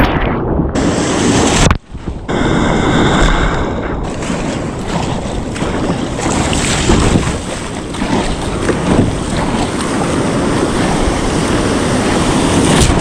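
Wind buffeting the microphone over the wash of sea waves and splashing water, a dense steady noise that cuts out briefly about two seconds in.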